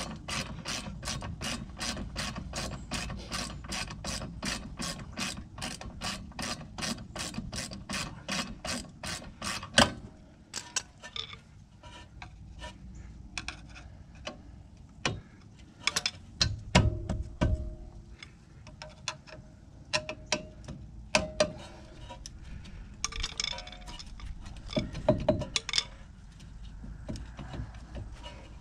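Hand ratchet wrench clicking steadily, about three clicks a second, as a bolt is turned. About ten seconds in the ratcheting stops, and scattered metal clinks and knocks follow.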